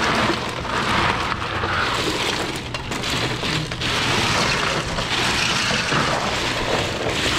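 Ice cubes clattering as they are poured from a plastic bucket into a stainless-steel drinks cooler and then spread by hand over bottles and cans: a steady rattling hiss that swells several times.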